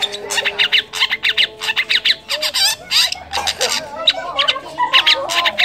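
Long-tailed shrike (cendet) singing a rapid, harsh chattering song packed with mimicked calls of other birds.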